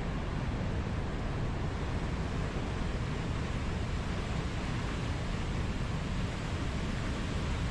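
Fast mountain river rushing over rocks in whitewater: a steady, unbroken rush of water.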